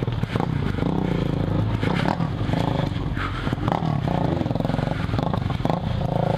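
Suzuki Bandit's inline-four engine running on a rough trail, its pitch rising and falling with the throttle. Scattered knocks and clatter run through it as the bike rides over bumps and brush.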